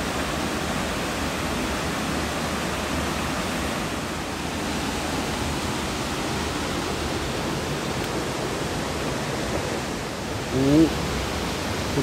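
Steady rushing of a mountain-stream waterfall, water pouring and cascading over rock.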